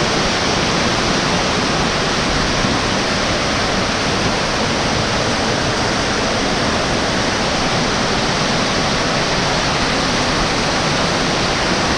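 Waterfall on a river, water pouring in a steady, unbroken rush.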